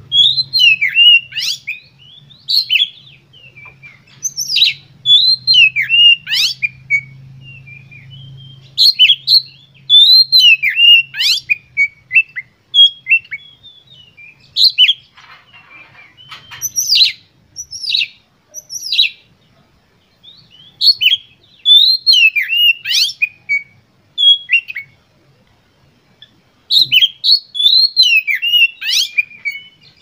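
Oriental magpie-robin (kacer) singing loudly in repeated phrases of varied whistles and sharp sweeping notes, each phrase a second or two long with short pauses between. A faint low hum lies under the first third.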